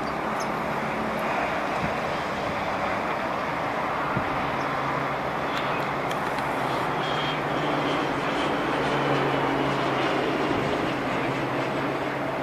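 KT-1B Woong Bee turboprop trainers flying overhead: a steady engine-and-propeller drone, with a low hum that comes in about four seconds in and swells a little later on.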